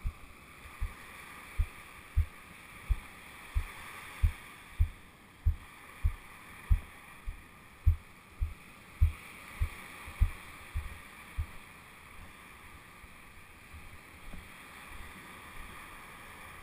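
Footsteps on sand thudding through a body-worn camera at a walking pace, about one and a half steps a second, over a steady hiss of surf and wind. The steps stop about eleven seconds in, leaving only a few light bumps.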